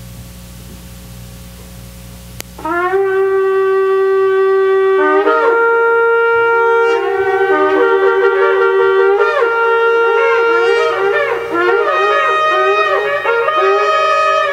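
Instrumental intro of a worship song played by a reedy wind instrument. A long held note comes in about two and a half seconds in, a second held note joins it, and then a melody with bending, sliding ornaments begins. A low hum comes before the music starts.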